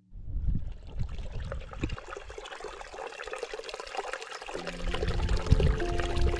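A steady hiss with fine crackling, like outdoor ambience, and a few soft thumps. About halfway through, background music with held, sustained notes comes in and becomes the loudest sound.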